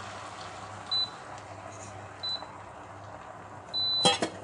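Electronic beeps from a Crock-Pot Express pressure cooker's control panel as its buttons are pressed: a short beep about a second in, another a second later, then a longer beep with a couple of sharp clicks near the end, over a steady hiss.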